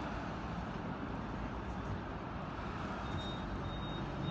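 Steady rumble of city road traffic and the tram itself, heard from the upper deck of a Hong Kong double-decker tram. A faint high whine comes in about three seconds in.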